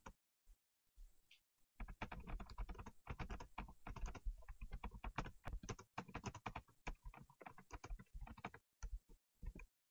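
Typing on a computer keyboard: a few single key presses, then a fast, steady run of key clicks from about two seconds in, ending with a few last taps near the end.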